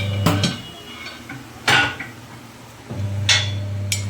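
Electric tyre-changer machine humming, stopping about half a second in and starting again about three seconds in, with about five sharp metal clanks of tyre lever and steel rim as a tubeless tyre's bead is worked off the rim.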